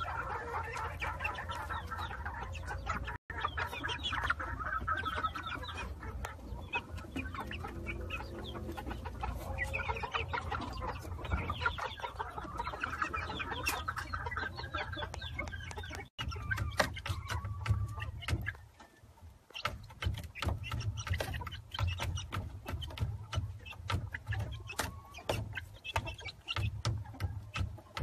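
Young chickens clucking and peeping, many short calls overlapping, over a steady low rumble with frequent small clicks. The calls thin out after about 16 seconds.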